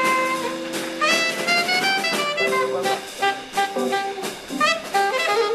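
Upbeat jazz with saxophone and brass playing a melody of held and changing notes.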